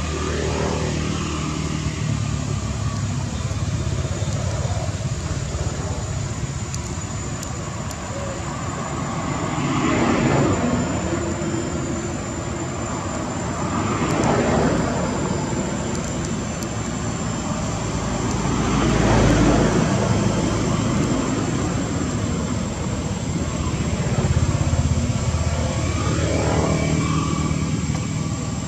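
Distant motor traffic: a steady rumble that swells and fades four times as vehicles pass, with a thin steady high whine above it.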